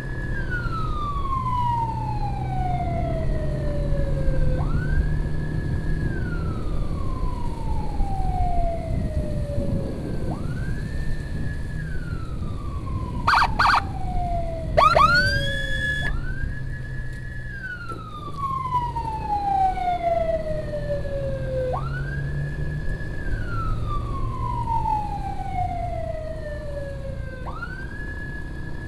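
Electronic emergency siren in wail mode. Each cycle rises quickly, holds high for about a second and a half, then slides slowly down, repeating about every five and a half seconds. About halfway through come a few short sharp blips and a quick whoop, all over the running motorcycle's engine and wind noise.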